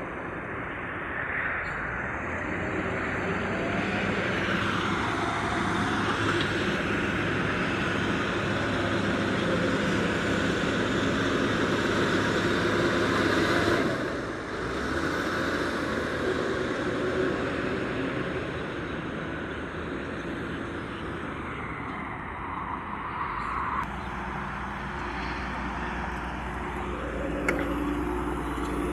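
Heavy diesel engine running continuously, its note changing several times as the load or speed shifts, with a brief drop about halfway through and a lower, steadier note near the end.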